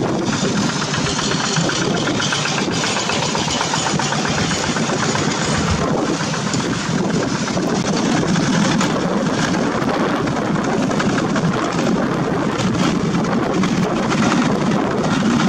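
Single-cylinder Kubota diesel engines of two-wheel walking tractors (Quick hand tractors) running steadily.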